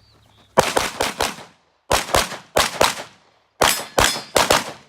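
Pistol shots fired in quick strings: about twelve sharp cracks in three groups of four, each shot ringing briefly.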